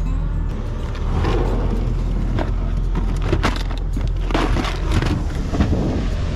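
Rummaging through a rear cargo drawer of recovery gear: rustling plastic bags, clattering straps and rope, and several sharp knocks, starting about a second in. A low steady hum runs underneath.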